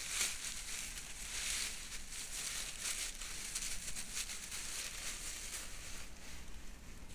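Irregular rustling and crinkling of dry leaves and plant litter being disturbed.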